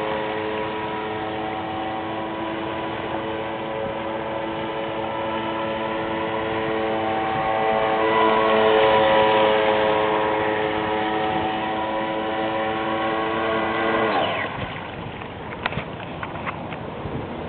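Brushless motor of a 12-cell RC speedboat (SV27 motor driving through a reduction gearbox) running at speed with a steady high whine, loudest about halfway through. About fourteen seconds in the whine drops in pitch and fades as the throttle comes off, and a few short clicks follow.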